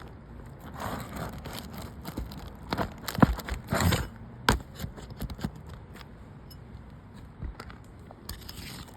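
A roof snake nail puller worked under asphalt shingles to get at roofing nails: irregular scraping and crackling with sharp knocks, the loudest strokes clustered about three to four and a half seconds in.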